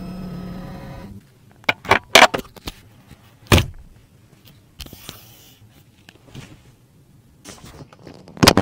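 An electric motor whining steadily stops about a second in, followed by clicks and knocks of a fold-down tray table on the back of a car seat being pulled down and handled, with a loud knock about three and a half seconds in and another near the end.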